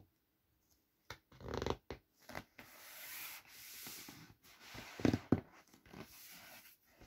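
Air hissing out of an inflatable vinyl unicorn pool ring as hands press it flat, in long stretches broken by louder rubs of the hands on the vinyl about a second and a half in and again about five seconds in.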